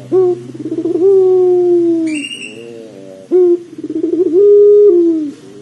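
Puter pelung, a domestic Barbary dove kept for its long coo, cooing twice: each phrase opens with a short note, runs into quick wavering notes and ends in a long held coo. A brief high squeak sounds about two seconds in.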